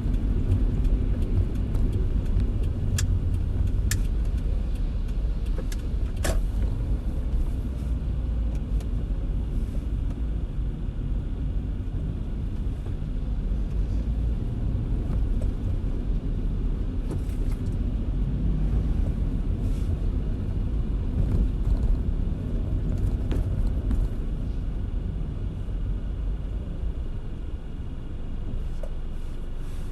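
Car driving in the rain: a steady low rumble of road and engine under a light hiss, with a few scattered sharp ticks.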